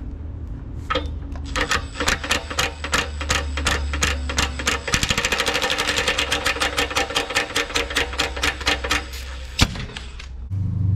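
Cordless impact wrench hammering rapidly as it undoes the sacrificial anode from the top of a gas storage hot water tank. The strokes come faster in the middle and stop, followed by one sharp knock near the end. The anode it frees is badly corroded and caked with sand.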